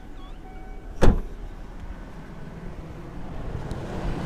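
Volkswagen Passat engine idling from a cold start, steady and without the tapping of hydraulic valve lifters, which the owner credits to a lifter-noise additive. One sharp knock sounds about a second in.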